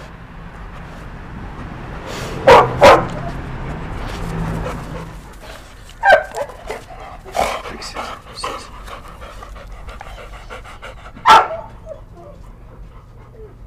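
Labrador retriever barking: two loud barks in quick succession a couple of seconds in, several more scattered through the middle, and another loud bark near the end, with softer panting in between.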